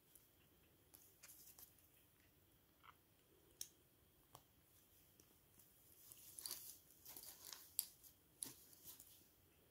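Faint clicks and taps of small plastic minifigure parts being handled and fitted together, with a denser run of clicking and scraping about six to eight seconds in.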